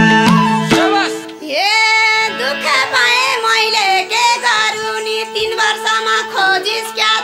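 Nepali dohori folk music played live by an ensemble of sarangi, flute, madal drums and keyboard, with singing. The music dips briefly about a second and a half in, then a high gliding melody comes in over a held low tone.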